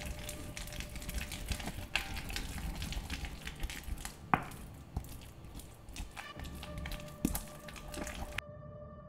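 Wooden pestle mashing wet basil pesto with olive oil in a marble mortar: squishing, grinding and irregular clicks, with a sharper knock about four seconds in. The mashing stops suddenly near the end, leaving faint background music.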